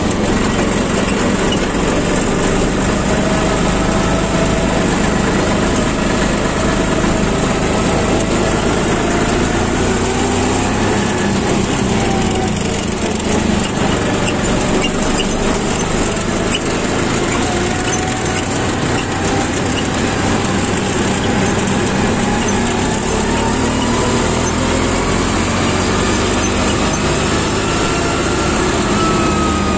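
Diesel engine of a John Deere tractor running steadily while driving on the road, heard from the driver's seat. Its pitch drifts slowly up and down with engine speed and rises near the end.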